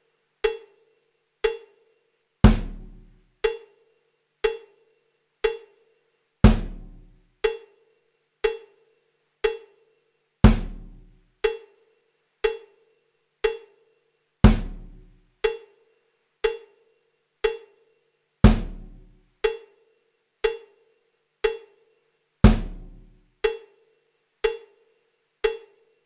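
Sparse looping percussion music: a heavy bass-drum hit every four seconds, with lighter ringing, cowbell-like strikes about once a second in between.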